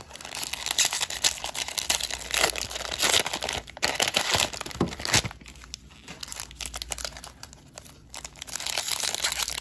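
Plastic cello-pack wrapper of a trading-card pack crinkling and tearing open in gloved hands. The crackling is densest for about the first five seconds, then drops to quieter handling before picking up again near the end.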